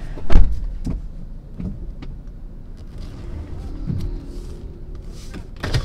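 Low road rumble inside a moving car's cabin, broken by a few short knocks and thumps. The loudest comes just after the start, and a smaller one comes near the end.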